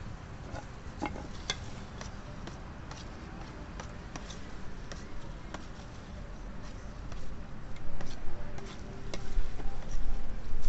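Metal spoon clinking and scraping against a stainless steel bowl while banana pieces are stirred through thick batter: a scattered run of light clicks, over a low rumble that grows louder in the second half.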